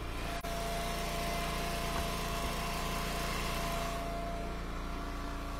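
Small gasoline engine of an Eastonmade Ultra log splitter running steadily.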